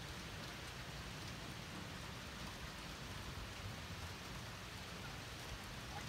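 Steady, even background noise with no tone in it, from a low rumble up to a high hiss; no horn is sounding.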